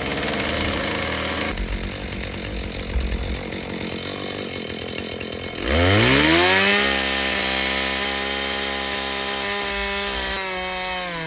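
Two-stroke gas chainsaw running rough and uneven at first, then revving up sharply about halfway through and holding at high revs, with a brief dip near the end.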